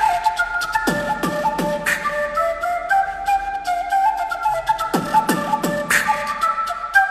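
Background music: an electronic track with a flute-like lead melody over a fast ticking beat, with deep falling bass hits in groups of three about a second in and again about five seconds in.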